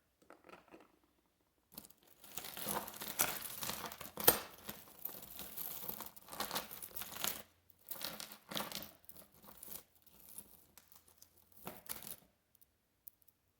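A bag of jewelry being rummaged through: crinkling and rustling with small clicks of the pieces as they are pulled apart, starting about two seconds in and stopping shortly before the end, with one sharp click about four seconds in.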